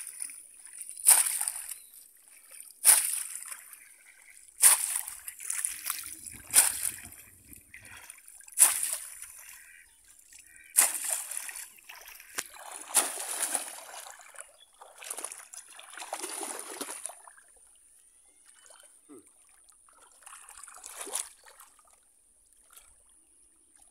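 Splashing of a bamboo polo fish trap being plunged again and again into shallow water, a sharp splash every second or two, growing fewer and fainter in the last several seconds.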